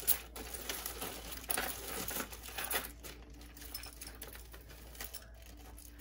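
Clear plastic bag crinkling and rustling as a hand rummages through loose jewelry inside it, with scattered light clicks.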